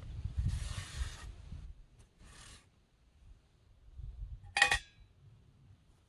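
Several rough rasping, rubbing strokes, then a single sharp metallic clink about four and a half seconds in.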